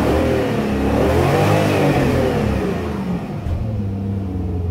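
BMW E34 540i's V8 engine revved once, heard from behind the car: the pitch climbs for about a second and a half, then falls back to a steady idle.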